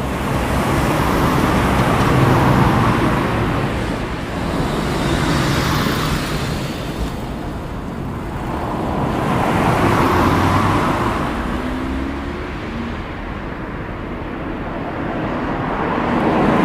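Road traffic: vehicles passing, the rushing noise swelling and fading about three times.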